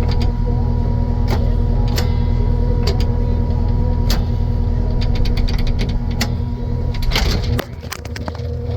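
Takeuchi TL12 track skid steer's diesel engine running steadily, with scattered sharp clicks over it. About seven and a half seconds in, the deep rumble drops away sharply while a steady hum carries on.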